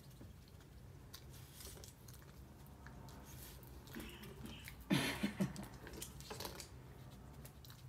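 Dog chewing and gnawing on a small found object, a run of faint wet clicks and crackles. A short throaty vocal sound cuts in about five seconds in.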